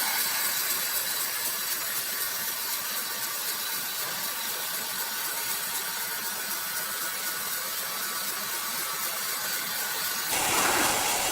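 Sawmill saw running through a large log: a steady hiss that turns louder and fuller about ten seconds in.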